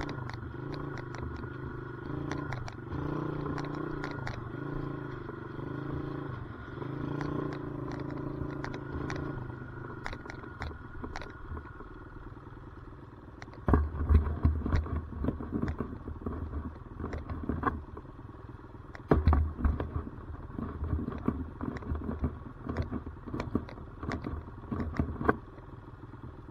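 Dirt bike engine running while being ridden, its pitch rising and falling with the throttle, with frequent clattering knocks. About 14 and 19 seconds in come loud, low rumbling bursts.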